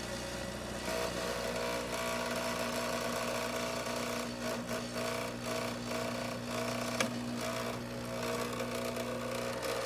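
VBM espresso machine's newly replaced pump running steadily while pulling a shot at about 10 bar of brew pressure, a continuous mechanical hum. A brief click about seven seconds in.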